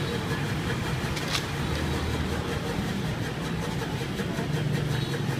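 Motor vehicle engines running steadily amid passing street traffic of cars and motorbikes, with one short sharp click about a second in.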